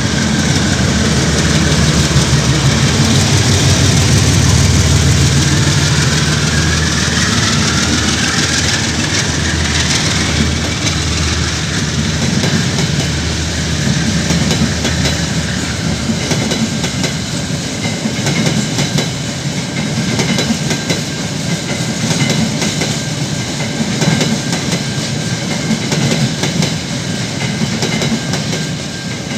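KiwiRail diesel freight locomotive 5166 passes with its engine drone loud over the first ten seconds or so. A long string of empty container flat wagons then rolls by, their wheels clicking over the rail joints.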